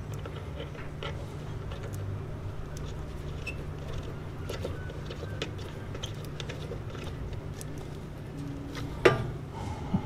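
Faint clicks and rustles of hands handling a plastic garage door safety sensor and its thin wires, over a steady low hum, with one sharper knock about nine seconds in.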